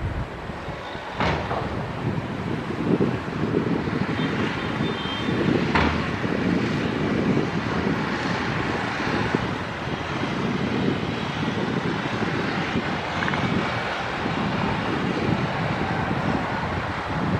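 Heavy diesel earthmoving machinery running and working, a steady deep rumble that swells and eases, with two sharp metallic knocks, one just over a second in and one about six seconds in.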